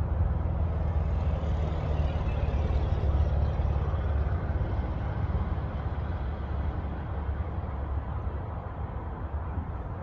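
Wind buffeting the microphone: a steady low rumble, with a broader rush that swells about a second in and eases off after about four seconds.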